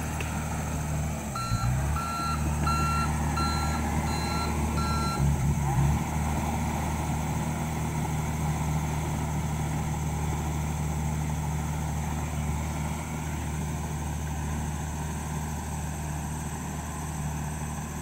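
Komatsu D31EX bulldozer's diesel engine running steadily as the machine travels. Just over a second in, a backup alarm beeps about six times, roughly one beep every two-thirds of a second, then stops.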